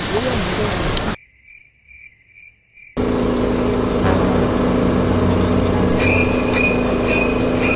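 Crickets chirping, a high chirp repeated about four to five times a second, first alone and quietly. A loud steady hum with a low rumble then starts suddenly, and the chirps come back over it near the end.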